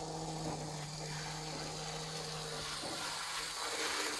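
Lima OO gauge Class 117 DMU model's electric motor running with a steady hum, wheels rattling on the track, growing slowly louder as the model approaches.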